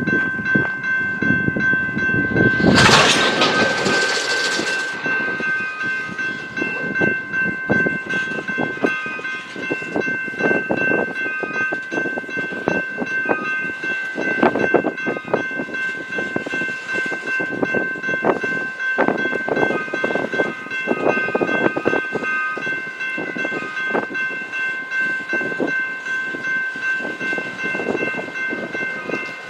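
A train rolling past, its wheels clattering over the rails in a continuing run of short knocks. A steady high-pitched whine runs under it, and there is a brief loud hiss about three seconds in.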